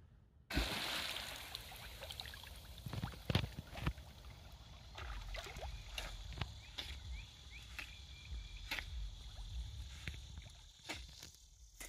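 Lake water sloshing and splashing as a dog swims, with wind rumbling on the microphone and scattered sharp clicks. It starts abruptly about half a second in.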